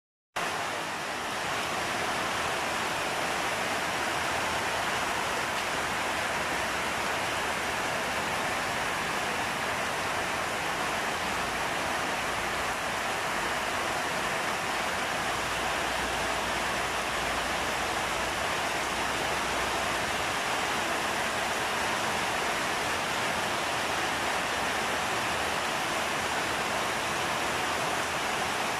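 Heavy rain pouring down steadily on trees and garden foliage, an even, unbroken hiss.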